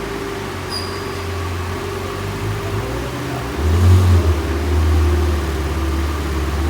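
A car engine running with a steady low drone, growing louder about three and a half seconds in.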